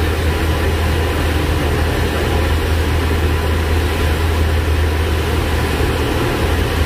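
Cessna 172's piston engine and propeller running steadily in flight, heard inside the cabin: a constant low hum under an even rushing noise.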